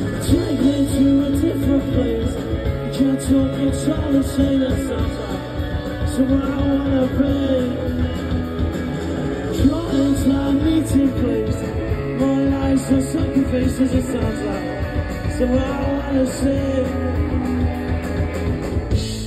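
A rock band playing live, with electric guitar, drums and a voice singing, heard from among the audience.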